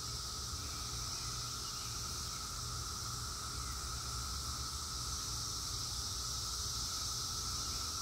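Chorus of many cicadas droning steadily, a high continuous hiss with a lower humming tone under it, with no breaks.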